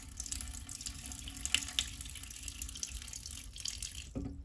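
Water poured from a jug into the bottom of an empty ceramic toilet tank, a steady splashing stream. The pour stops just before the end, followed by a short knock.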